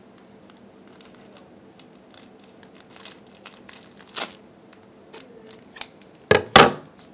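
Foil Pokémon card booster packs being opened by hand: wrappers crinkling and tearing, with a few louder crackles, the loudest two close together near the end.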